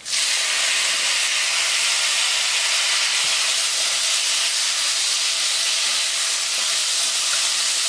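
Chopped tomatoes hitting hot oil and fried masala in a kadhai: a sudden, steady sizzle that starts as they drop in and holds evenly.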